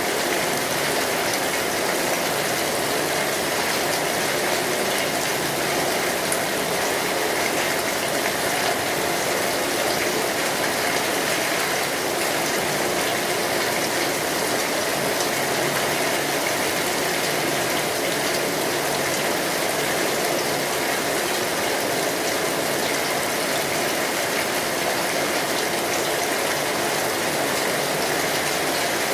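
Steady rain falling on a street: an even, unbroken hiss of drops with no pauses.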